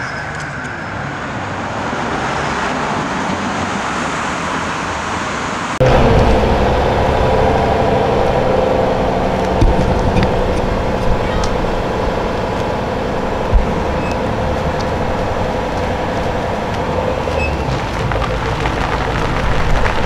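City street traffic for the first few seconds, then an abrupt cut about six seconds in to a Jaguar F-Type sports car's engine idling steadily, with a few short ticks.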